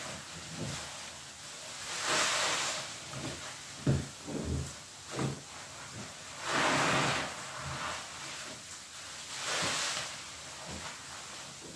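Soaked, soapy sponges squeezed and wrung by hand in thick foam: wet squelching, with three long hissing swells as suds and water are pressed out, and a few short low squelches in between.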